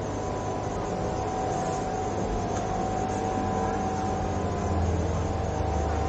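A steady low mechanical hum with a few faint steady tones, growing louder about five seconds in, over the general background noise of a busy indoor market.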